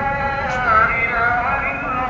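A voice singing or chanting a long held note that wavers and bends in pitch.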